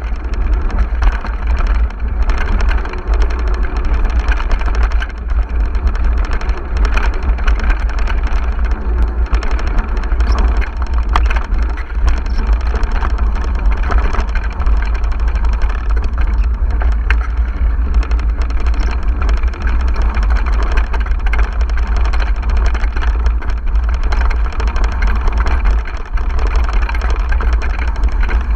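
Mountain bike riding over a rough off-road trail, with frame and chain rattling and clicking continuously over a loud, steady low wind rumble on the camera microphone.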